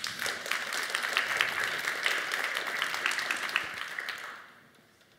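Audience applauding, a dense patter of many hands clapping that dies away after about four seconds.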